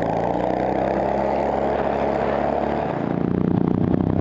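Racing ride-on lawn mower's engine running at steady high revs, heard from on board the mower. About three seconds in the sound changes to a rougher, slightly louder engine noise.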